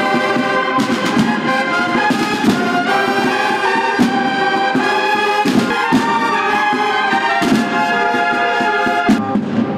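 A Holy Week brotherhood band of trumpets and drums playing: massed trumpets holding long chords, with drum strokes now and then.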